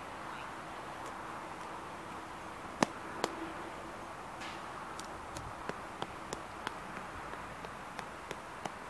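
Steady outdoor background hiss with two sharp clicks about a third of the way in, then a regular run of sharp clicks about three a second through the second half: footsteps on wet asphalt.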